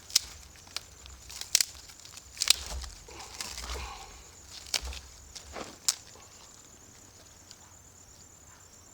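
Several sharp cracks and knocks with some rustling and crunching, from sticks and kindling being handled to rebuild a campfire; they stop about six seconds in. A steady, high insect chirring goes on throughout.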